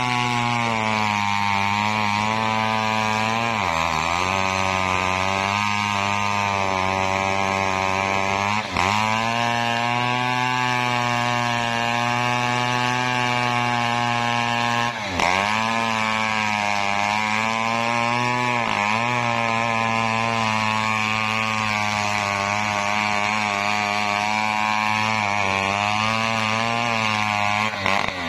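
Engine-driven wood saw running steadily at high throttle while cutting coconut timber. Its pitch dips briefly and recovers four times as the blade takes load.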